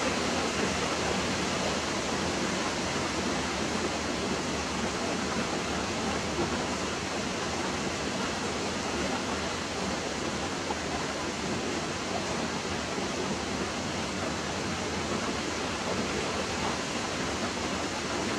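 Steady, even rushing hiss with no pitch, rhythm or breaks.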